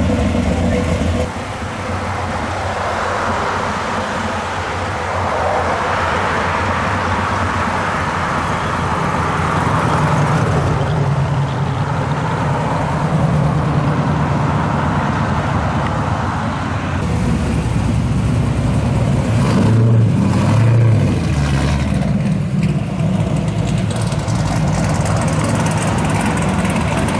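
Engines of modified classic cars running loud as they pull away one after another: a Chevrolet Vega wagon, a first-generation Camaro SS, then a third-generation Pontiac Firebird. A deep engine note sounds throughout, swelling louder in the middle and again about twenty seconds in.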